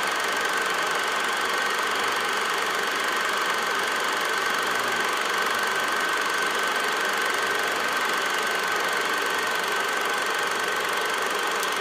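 Steady mechanical running noise with a thin, high, steady tone on top.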